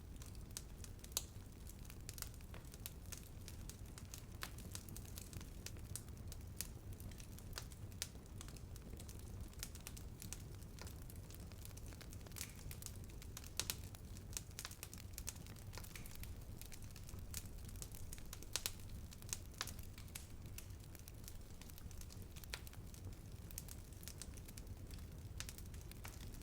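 Bonfire burning with a steady low rumble of flames and irregular sharp crackles and pops of burning wood, a few louder pops standing out.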